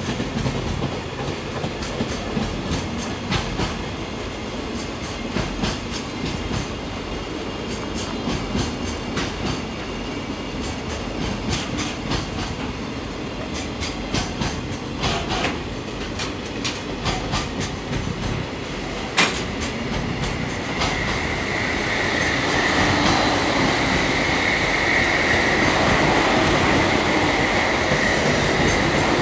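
Container wagons of a long freight train rolling past, the wheels clicking over rail joints. About two-thirds of the way through the sound grows louder and a steady high whine joins the rumble.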